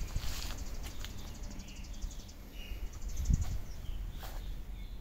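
Small birds chirping in the background over a steady low rumble, with a dull thump a little after three seconds in.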